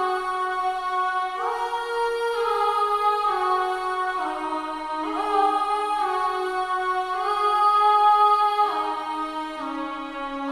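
Sampled choir-style vocal "aah" pad from a software instrument playing sustained chords, which change every second or two and slide smoothly into each new chord.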